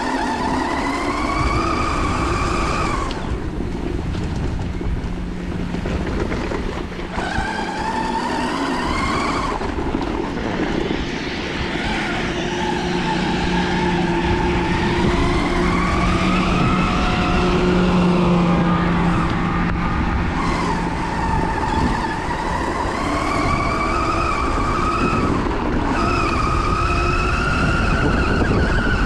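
CYC X1 Pro mid-drive electric motor whining under throttle, its pitch rising and falling with speed and dropping out briefly several times as power comes off and on. Wind and tyre rumble on a dirt track run underneath.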